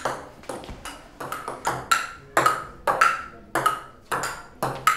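Table tennis rally: the ball clicking off the paddles and the wooden table in an even rhythm, two to three hits a second, each with a short ring.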